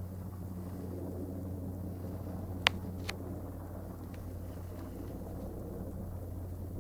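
A steady low mechanical drone with a hum at two fixed low pitches, heard outdoors at a distance, with two sharp clicks about two and a half and three seconds in.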